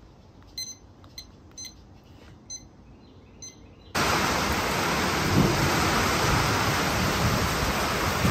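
A few faint short clicks from the buttons of a ThermPro TP27 digital thermometer. About halfway through, heavy rain starts pouring down, loud and steady, with a low rumble of thunder under it.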